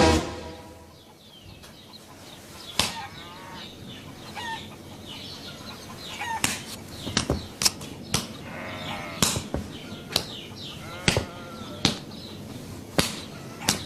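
Farm-animal calls: a string of short, sharp calls with brief pitched chirps, irregularly spaced, starting about three seconds in after a quiet opening.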